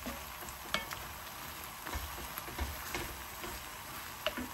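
Wooden spoon stirring a simmering tomato and vegetable sauce in an enamelled pan, with a steady sizzle and a couple of light knocks of the spoon against the pan.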